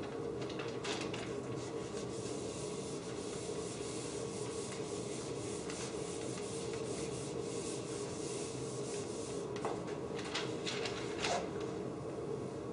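Dry-erase eraser wiping a whiteboard, a steady scrubbing hiss of back-and-forth strokes that breaks into a few separate strokes near the end.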